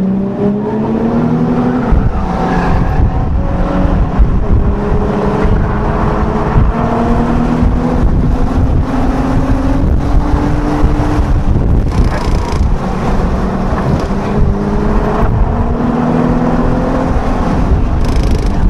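Car engine heard from inside the cabin, accelerating hard on track, its pitch climbing slowly and dropping back at gear changes about two seconds in and again around eleven seconds, over heavy road and tyre noise.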